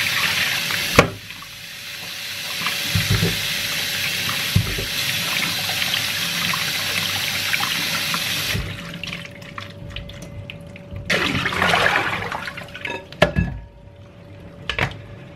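Kitchen tap running into the sink as vegetables are rinsed: the stream stops with a knock about a second in, runs again from about two seconds and cuts off a little past halfway. A few knocks and a short rush of sound follow near the end.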